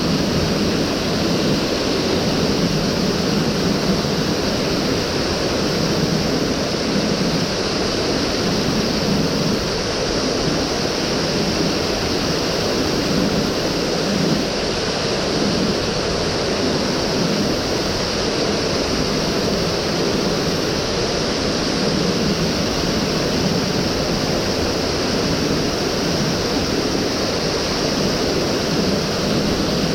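Mountain stream rushing over rocks: a steady, unbroken water noise.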